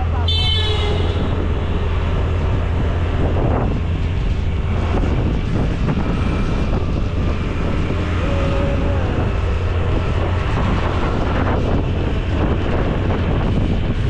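Wind buffeting the microphone with steady motor-scooter and road noise while riding. A brief high-pitched toot sounds just after the start.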